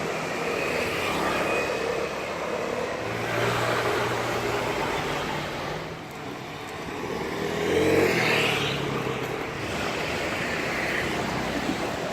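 Road traffic with vehicles passing one after another over a steady hum of traffic. The loudest vehicle passes about eight seconds in.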